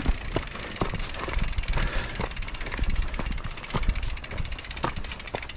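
Mountain bike rolling fast down a loose gravel trail: tyres crunching over stones, with frequent sharp knocks and rattles from the bike over bumps and a low wind rumble on the microphone.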